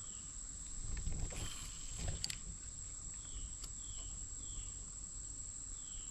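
Insects keeping up a steady high-pitched drone by the creek, with short falling chirps about once a second and a few faint knocks and rumbles about a second and two seconds in.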